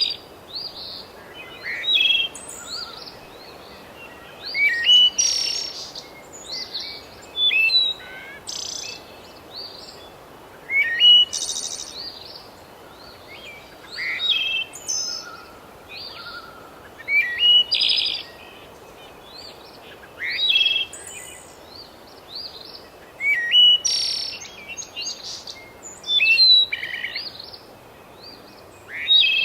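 A songbird singing short, loud phrases of quick whistles and trills, repeating about every three seconds, with fainter chirps from other birds in between.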